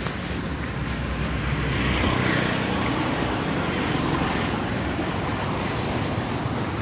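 Street traffic passing close: an auto-rickshaw goes by, its sound rising and falling about two to four seconds in, followed by a motorcycle, over a steady low engine rumble.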